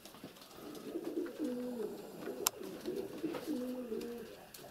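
Domestic pigeons cooing over and over, low warbling coos following one after another, with a single sharp click about halfway through.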